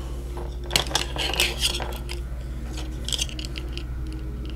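Small hard plastic construction-toy pieces clicking and clattering as they are handled in the hands. There is a quick flurry of clicks about a second in and a shorter one about three seconds in.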